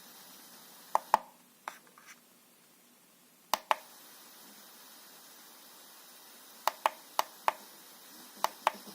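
Steady electronic hiss from the Douni A7, the fault being shown, with sharp clicks of its buttons being pressed, mostly in quick pairs. The hiss falls away after the first clicks and comes back with the pair of clicks at about three and a half seconds.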